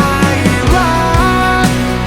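Emo rock song with drums and distorted guitars, and a melody line above them that slides between held notes.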